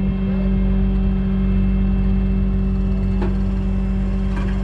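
Heavy tow truck's diesel engine running steadily at a constant speed, with a steady hum. A few faint clicks sound about three and four and a half seconds in.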